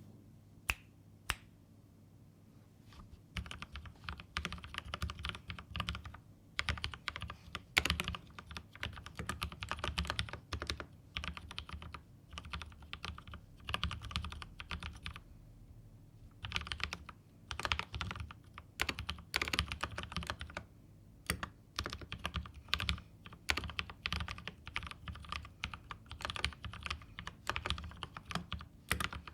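Mechanical keyboard being typed on: lubed Holy Razer frankenswitches (Halo True stems in Kailh Razer Green housings) under GMK Honeywell keycaps. Two single keystrokes come first, then fast runs of typing in bursts separated by short pauses.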